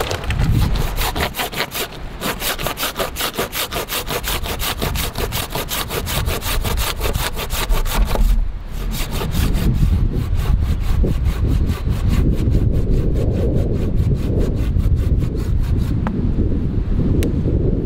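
Hand pruning saw cutting through a green sapling pole with fast, even rasping strokes. There is a short break about eight seconds in, then a second run of strokes that stops about two seconds before the end.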